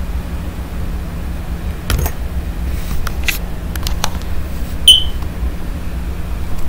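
Handling noise on a handheld camera's microphone: a steady low rumble with several light clicks, and a short high beep about five seconds in.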